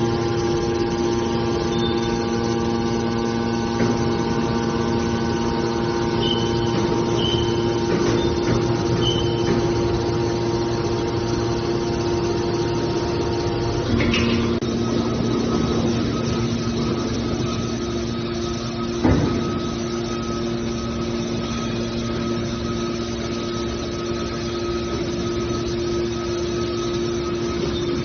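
Small aluminum can baler's electric motor and hydraulic pump running with a steady hum. The tone changes about halfway through, and there is a short knock a few seconds later.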